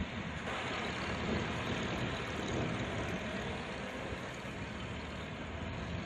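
Steady street traffic: vehicles passing and engines running.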